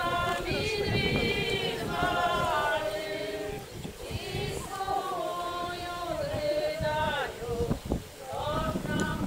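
A group of voices singing an Eastern-rite liturgical chant together, in long held phrases with short breaks between them.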